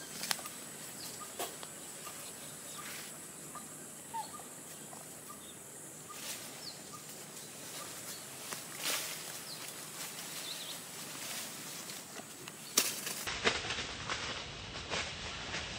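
Outdoor ambience of leaves and branches rustling, with irregular short sharp rustles as baby monkeys climb and swing in a tree, and a few faint bird chirps.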